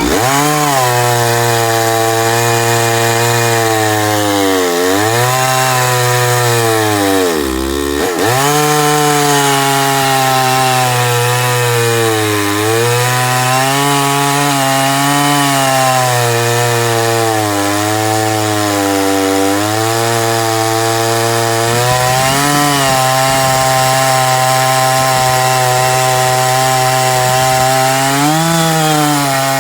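Chainsaw on an Alaskan chainsaw mill ripping a log lengthwise, its engine running hard under load. The engine speed sags sharply twice in the first eight seconds, nearly dropping out about eight seconds in, then recovers and holds steady with small dips as the bar cuts through the wood.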